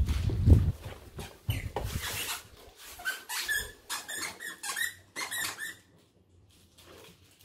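Dog squeaker toy shaped like a duck squeaking in a rapid run of short squeaks as a dog chews it, from about three to six seconds in. A few heavy thumps come in the first second or two.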